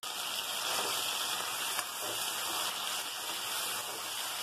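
Boiled, peeled taro root (arbi) pieces sizzling steadily in hot oil in a kadai.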